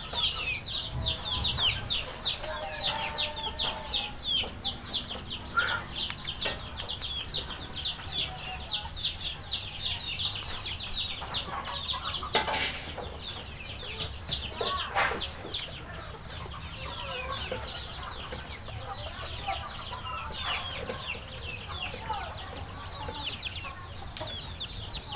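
Chickens peeping and clucking: a dense, continuous run of rapid, high, falling chirps, with two sharp knocks about halfway through.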